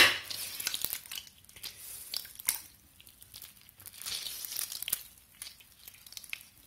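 A lemon half being juiced on a fork over a pot: a sharp knock at the very start, then irregular short rustling and clicking noises as the fruit is twisted and squeezed.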